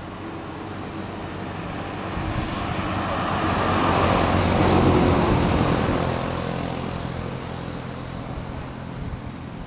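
A minivan driving past on a road, its engine and tyre noise building to a peak about halfway through and then fading away as it passes.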